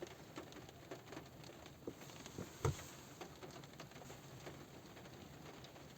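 Light rain on a car roof: scattered drops tapping irregularly over a faint hiss, with one louder tap a little before halfway.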